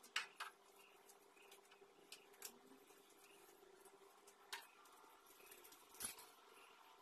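Near silence in a room, broken by about five faint, sharp clicks and knocks as small objects are handled and set down, over a faint steady hum.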